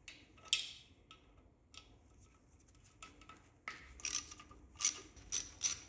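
Socket ratchet clicking in short back-and-forth strokes, about two to three a second, starting past the middle, as small fasteners are being run off. One sharp metal click comes about half a second in.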